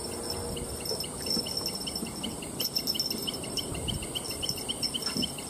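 Insects chirping in a quick, even series of short chirps, about four a second, over a steady high-pitched whine.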